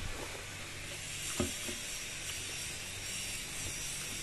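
Faint steady hiss, with a couple of soft clicks of chewing about a second and a half in as a mouthful of food is eaten.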